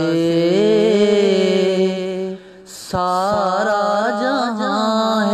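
A solo voice singing a devotional Urdu naat, holding long ornamented notes that waver and slide in pitch. There is a brief breath break about two and a half seconds in.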